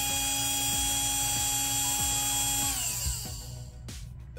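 Small brushed DC motor driven by a PWM speed controller, whining steadily at full throttle, then spinning down about three seconds in as the throttle is cut to zero.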